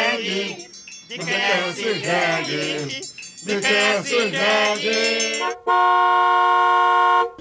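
Background music with a singing voice. Near the end it gives way to a loud, steady chord-like tone, held for under two seconds, which stops abruptly.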